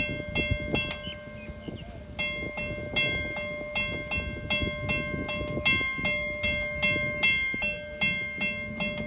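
Newly installed railway level crossing bell ringing on its first test, struck about three times a second with each stroke ringing on. It stops about a second in and starts again about two seconds in.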